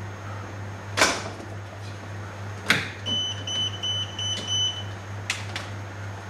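Sharp clicks and knocks of tools worked on an electrical distribution panel, with a run of about five short high beeps from an electrical tester in the middle, over a steady low hum.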